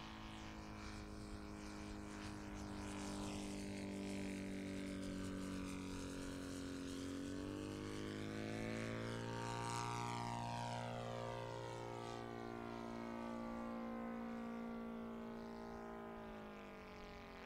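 Saito FG-57TS twin-cylinder four-stroke petrol engine and propeller of a radio-controlled model biplane running in flight. Its note rises as the model comes down into a low pass about eight seconds in and sweeps past, then holds steady and drops near the end.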